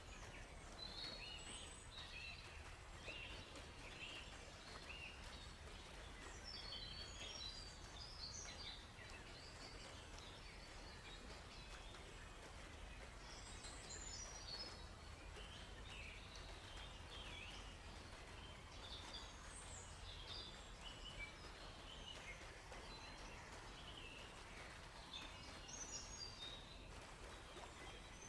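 Forest birds chirping and trilling faintly in many short, scattered phrases, with several birds overlapping, over a steady low rumble.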